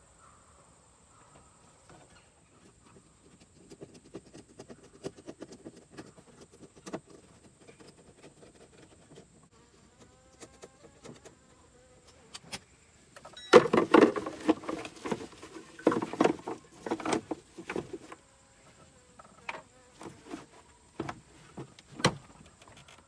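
Screwdriver turning screws into a plastic glove box, with faint scraping and clicking. Then a louder run of plastic clicks and rattles as parts are handled at the dash, and scattered sharp clicks near the end as the glove box is pressed.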